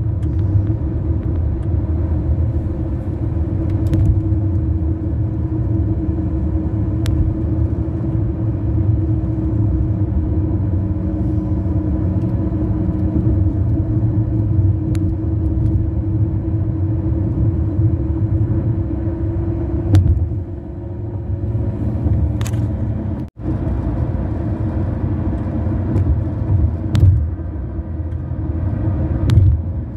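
Car tyres rolling on grooved concrete bridge pavement, heard from inside the cabin: a steady hum with a clear pitch that drops lower about 21 seconds in. A few faint sharp ticks are scattered through.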